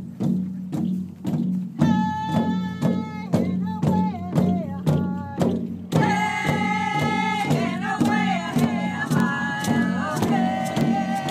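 Acoustic folk music with a steady beat and a low held drone underneath. A voice starts singing about two seconds in, and the singing grows fuller around six seconds in.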